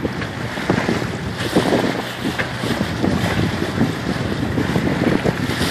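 Wind buffeting the microphone on a small sailboat under way, with water splashing along the hull and a steady low hum underneath. A sharp gust hits the microphone at the very end.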